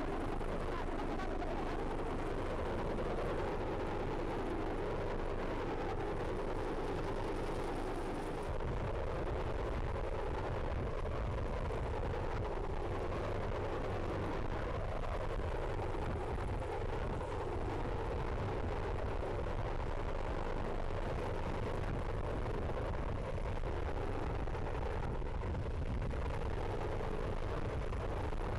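Steady noise of a rescue helicopter hovering overhead, its rotor and engines running, with a deep rumble of wind buffeting the microphone that grows stronger about eight seconds in.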